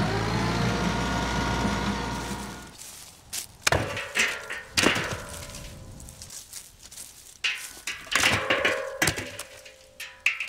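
An engine running, dying away about three seconds in, followed by a series of knocks and clatters: chunks of old tree stump tossed into a metal burn barrel, some hits leaving a short metallic ring.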